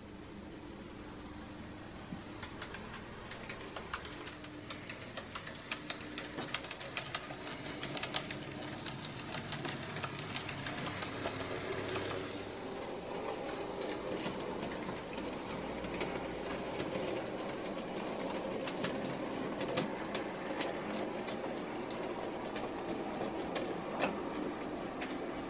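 N gauge model trains running on track: a steady high-pitched motor whine with many fine clicks of wheels over rail joints. About halfway through the whine stops and a fuller, steady running sound with scattered clicks takes over.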